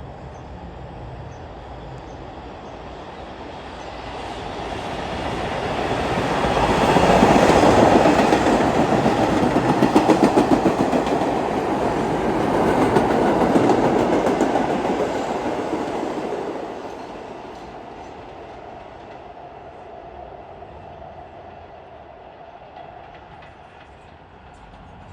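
R142 subway train passing by, growing louder over a few seconds, with a rapid rhythmic wheel clatter at its loudest, then fading away.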